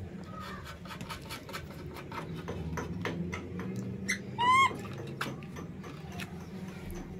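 Baby monkey giving one short, high squeal about four seconds in, over a run of light clicks and taps.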